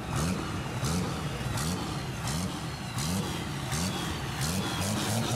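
Diesel engine of a dually rat rod being revved in quick repeated throttle blips, the note rising and falling about every 0.7 seconds, some seven times.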